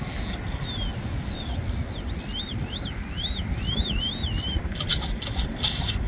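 Male great-tailed grackle calling: a run of high whistled slides, first falling and then rising and falling in quick arches, followed near the end by a burst of harsh rattling notes. The title hears the call as an imitation of a car's ignition.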